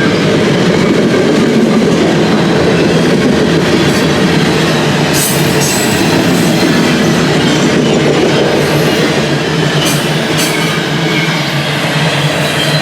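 Train rolling past on the tracks: a loud, steady rumble of wheels on rail, with a few short sharp clicks or squeals from the wheels about five seconds in and again around ten seconds.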